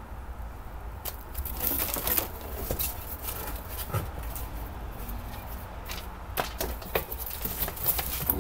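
Rummaging through packaging in a cardboard shipping box: irregular rustling and crinkling with scattered clicks and knocks, starting about a second in, over a low steady hum.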